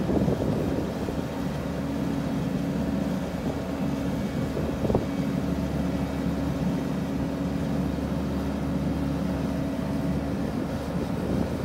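Kubota SVL90-2 compact track loader's diesel engine running steadily, with a single short knock about five seconds in.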